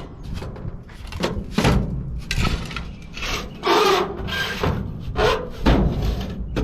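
Metal parts of a golf cart charger being scraped, pried and rubbed with hand tools as it is stripped for scrap. The scrapes come in quick irregular strokes.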